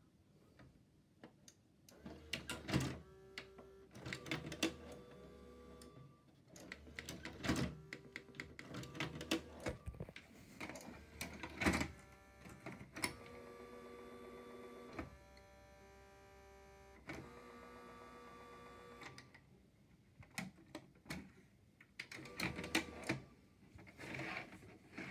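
VHS player's tape mechanism working: runs of clicks and clunks, a steady motor whir for several seconds midway, then more clunks. The player is failing to play the tape and ejecting it.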